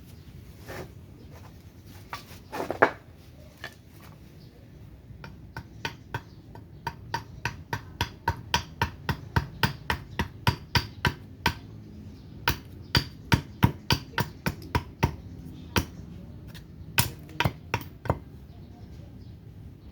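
Axe chopping into a block of surian wood, roughing out a spoon blank: sharp blows, a few scattered at first, then a steady run of about three a second for some ten seconds, then a few more near the end.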